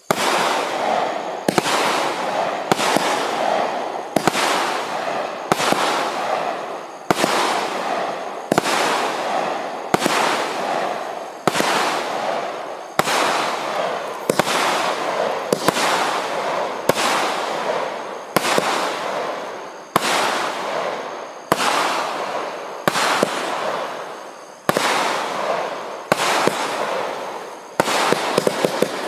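Oxygen 25-shot firework barrage (cake) firing shot after shot in a steady rhythm, about one every second and a half. Each launch bangs and then trails off in a fading crackle.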